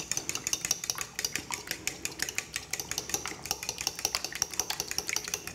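A fork whisking raw eggs in a small bowl, its tines clicking rapidly and evenly against the bowl.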